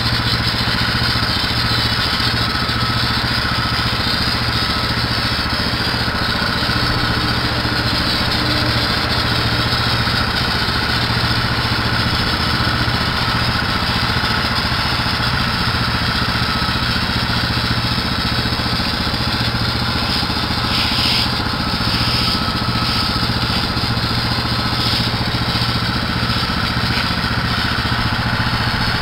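A small engine running steadily at a constant speed, with a few brief hissing surges near the end.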